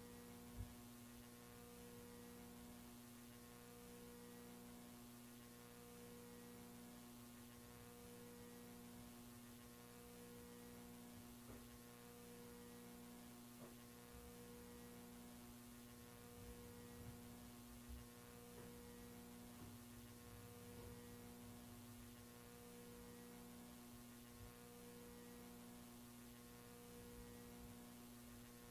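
Near silence with a faint steady electrical hum that pulses slowly and evenly, about once every two seconds, and a single faint click just after the start.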